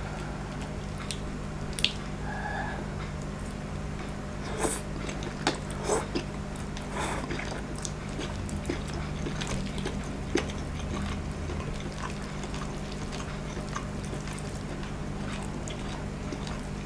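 Close-up eating sounds: chewing a mouthful of noodles, with scattered sharp clicks of a metal fork against the plate as the noodles are twirled.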